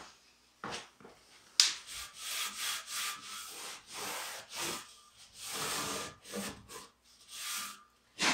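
A rag rubbed back and forth against a wooden stud and door-frame trim, working mold disinfectant into the wood. It comes as a run of rough, uneven scrubbing strokes that starts with a sharp one about one and a half seconds in.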